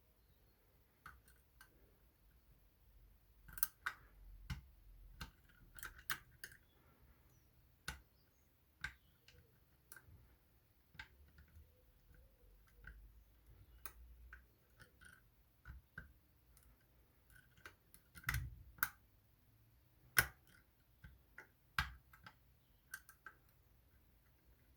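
Lock pick working the levers of a Union 3G110 five-lever mortice lock: faint, irregular clicks and ticks as the levers are lifted and set, with a few sharper clicks now and then.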